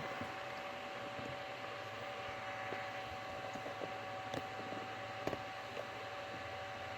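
A Pentium 4 desktop PC running: a steady fan hiss with a faint, even whine and a few small ticks.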